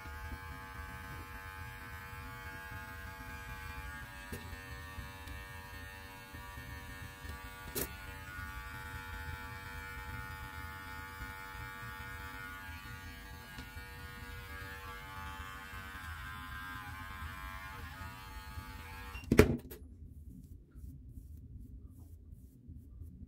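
Electric beard clippers running with a steady hum as they cut through a long beard. The hum stops with a sharp click about nineteen seconds in, followed by faint scratching of a comb drawn through the beard.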